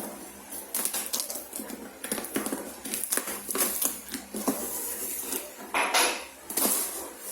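A courier parcel being opened by hand: packaging crackling and tearing, with scattered clicks and scrapes, loudest in two stretches about six and a half seconds in.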